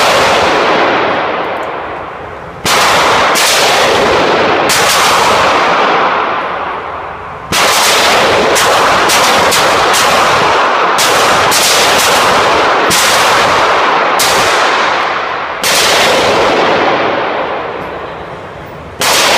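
H&R .22 LR handgun fired again and again at an uneven pace, well over a dozen shots, each crack trailing a long echo in an indoor shooting range.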